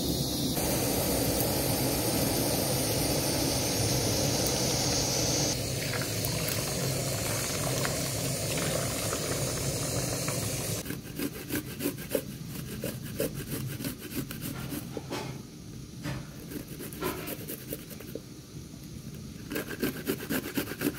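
Water rushing steadily over mung beans in a plastic colander. From about eleven seconds in, garlic cloves are rubbed on a hand grater in a quick, uneven run of short scraping strokes.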